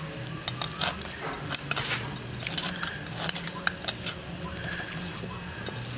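Scattered sharp clicks and scraping of utensils handling food, over a low steady hum.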